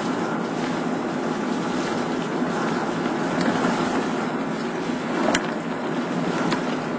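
Steady road noise from tyres on a wet, rain-soaked road, with rain and wind, heard from inside a moving vehicle; a single sharp click about five seconds in.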